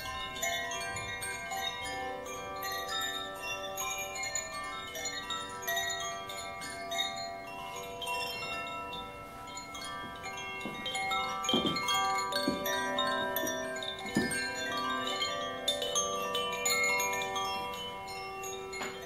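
A pair of Koshi chimes, the fire and earth bamboo-tube chimes, being swung so their inner clappers strike the tuned rods: many overlapping ringing tones that sustain and blend. A few dull knocks come about two-thirds of the way in.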